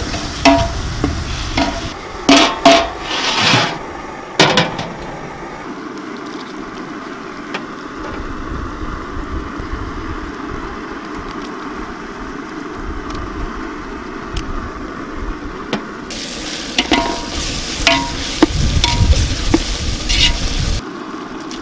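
Food frying in oil in a pan while a metal ladle stirs it: a steady sizzle, with sharp clinks and scrapes of the ladle against the pan in the first few seconds and again near the end.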